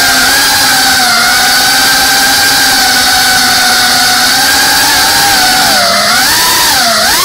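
FPV racing drone's electric motors and propellers whining steadily, heard from the camera on board. Near the end the pitch dips and swoops back up twice as the throttle is eased off and opened again.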